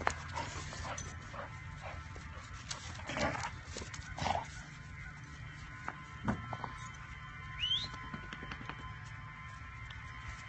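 Two young dogs playing in the snow: scuffling and a few short bursts of noise, with one short rising squeak about three-quarters of the way through.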